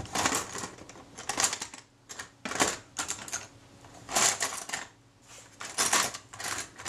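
Small metal hand tools clicking and clattering in about six short bursts as a pair of tweezers is picked out from among them.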